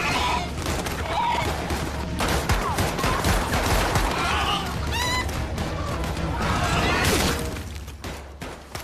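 Frenzied chickens squawking and flapping in an attack, with a rapid run of crashes and impacts over dramatic score music. The mix thins out near the end.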